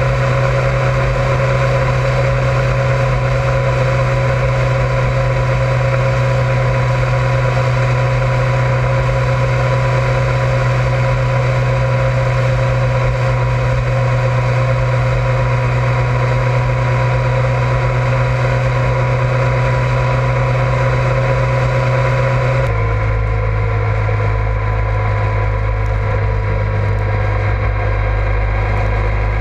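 Honda ST1100 Pan European's V4 engine running at steady cruising revs, heard from a side-mounted action camera along with steady wind and road noise. About three-quarters of the way through, the drone abruptly drops a little lower in pitch and becomes duller.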